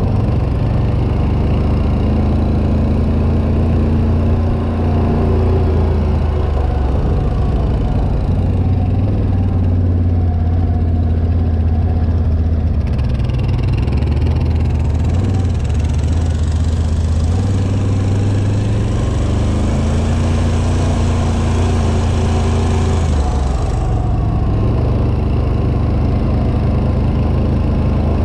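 ATV engine running, its low tone stepping up and down with the throttle. A hiss joins it about halfway through and cuts off a few seconds before the end.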